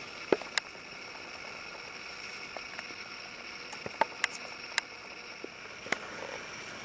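Quiet forest background: a steady faint high-pitched hum, with a handful of short sharp clicks and cracks scattered through.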